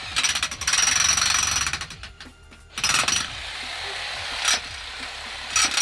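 Jackhammer running in three bursts of rapid hammering: a long first burst, a second that settles to a steadier, lower run, and a short one near the end.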